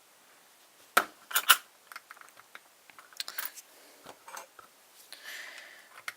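Metal tool working at the retaining clip on a padlock's lock cylinder: sharp little metallic clicks and scrapes, the loudest two about a second and a second and a half in, then lighter ticks and a short scratching a little after five seconds.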